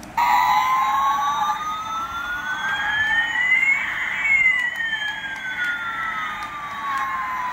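Electronic sound effect from a battery-powered toy Airbus A380 just switched on: two steady electronic tones glide slowly in opposite directions, one rising and one falling, crossing about halfway through.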